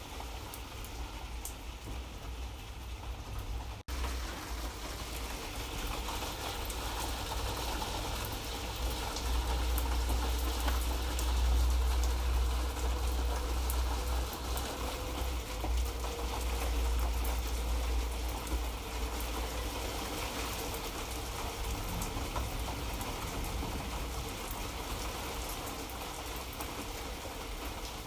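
Light rain falling: a steady hiss of fine drop ticks over a low rumble that swells for a few seconds near the middle. The sound cuts out for an instant about four seconds in.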